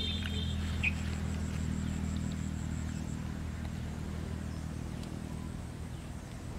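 Steady low engine hum of a motor running, easing off slightly toward the end.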